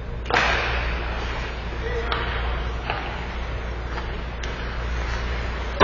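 Ice hockey sticks and puck clacking in an ice arena: a sharp crack about a third of a second in that rings through the rink, a few lighter clacks, and another loud crack at the very end, over a steady low hum.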